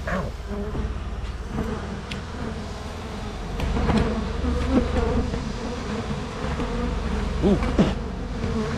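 A swarm of honey bees buzzing around an opened hive, with single bees zipping close past the microphone in rising and falling whines. The colony is disturbed and not happy at having its hive opened.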